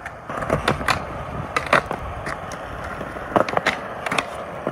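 Skateboard wheels rolling on concrete with sharp clacks of the board, then, about three and a half seconds in, a pop up onto a round metal rail and the trucks grinding along it.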